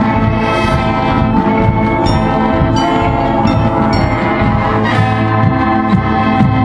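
High school marching band playing: brass holding sustained chords, with a few bright struck notes from mallet percussion.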